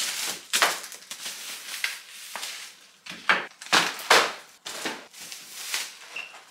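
Plastic carrier bags rustling and crinkling as groceries are lifted out of them, in quick irregular rustles, with light knocks of items being put down on a wooden table.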